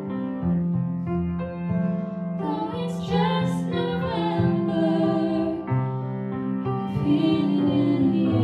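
A woman sings a slow original song to grand piano and acoustic guitar accompaniment, holding notes with vibrato.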